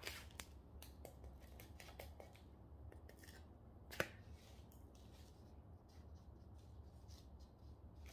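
Faint scratching and rustling of crumbly potting soil being scooped by hand and pressed into a plastic flower pot, with one sharp click about four seconds in.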